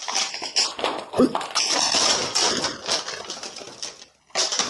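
Plastic blister packaging and its cardboard backing crinkling and tearing as a toy gun set is pulled open, a dense crackle of many small clicks that eases about four seconds in.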